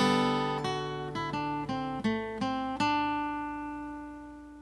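Short acoustic guitar sting: a strummed chord, then a quick run of plucked notes, the last note left ringing and fading out.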